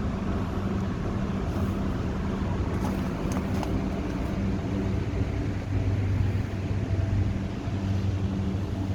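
A motor vehicle engine running with a steady low hum over a rumble, the hum growing stronger about halfway through.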